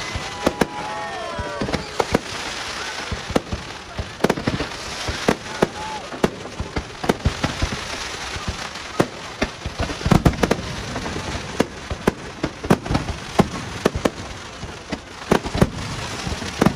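Fireworks display: many sharp bangs of bursting aerial shells at irregular intervals over a steady crackle of sparkling effects, with a dense cluster of bangs about ten seconds in.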